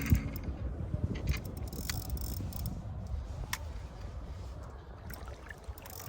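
Water lapping and dribbling over a low rumble, with a few sharp clicks.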